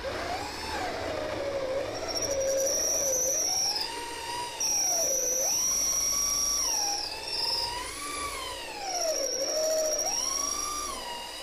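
Power drill motor whining as a 3/8-inch bit bores into the end of a wooden handrail, the hole for a zip bolt. Its pitch rises and falls over and over as the drill speeds up and slows under load.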